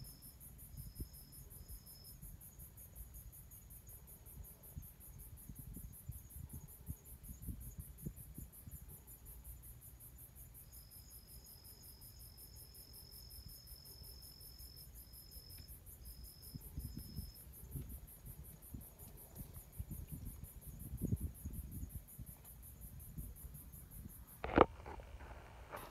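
Crickets and other insects chirping steadily: a high, rapid trill throughout, with a lower ringing note that comes and goes. A single sharp knock near the end.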